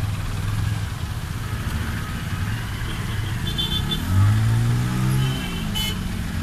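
Motor vehicle engines running steadily. About four seconds in, a small pickup truck's engine passes close and gets louder, its pitch rising and then falling.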